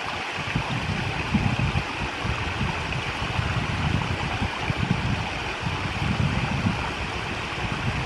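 Small rocky mountain brook babbling over stones and boulders: a steady rushing, splashing hiss of running water with an uneven low rumble underneath.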